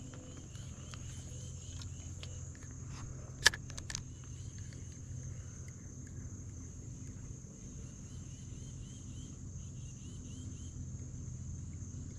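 Evening insects calling in a steady high-pitched drone, with short chirping trills coming and going, over a low steady hum. A single sharp click about three and a half seconds in.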